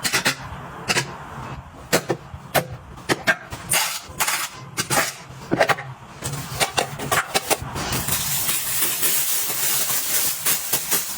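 Repeated clicks and clacks of small containers and items being handled and set down, then a steady hiss from about eight seconds in.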